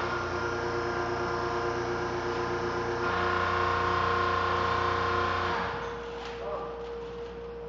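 Hydraulic power unit of a student-built hydraulic crane, its electric motor and pump running with a steady hum. Its note changes about three seconds in, and it shuts off a little over halfway through, leaving a quieter hum.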